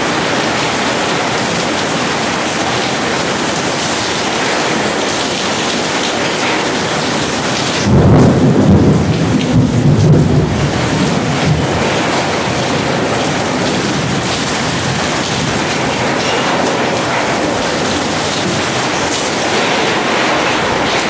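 Heavy rain falling steadily and pouring off the edge of a corrugated metal roof during a thunderstorm. About eight seconds in, a loud low rumble of thunder swells and dies away over three or four seconds.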